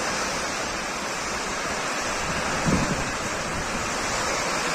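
Heavy rain and wind in a thunderstorm, a steady rushing noise.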